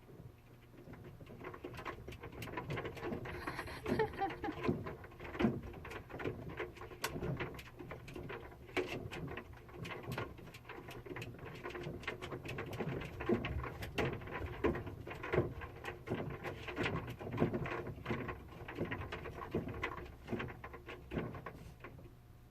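A cat playing at a washing machine: irregular taps, knocks and light rattles, some louder than others, starting about a second and a half in and stopping near the end.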